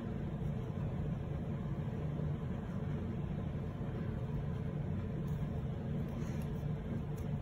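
Cat purring close to the microphone: a steady low rumble.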